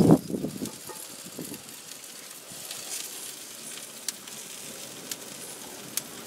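Thick-cut pork chops sizzling on a grill grate over indirect heat, a faint steady hiss with a few sharp pops of fat. A brief loud bump comes right at the start.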